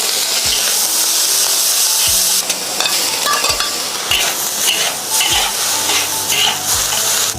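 Green peppers stir-frying in hot oil: a loud, steady sizzle, with the spatula scraping and knocking against the pan every second or so.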